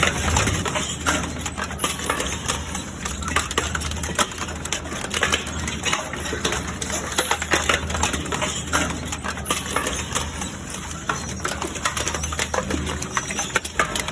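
Industrial wood chipper running under load: a steady engine drone with a dense, irregular crackle of sharp cracks and snaps as wood is broken into chips.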